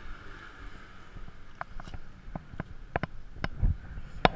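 Scattered light clicks and taps over faint steady background noise, with two sharper clicks near the end.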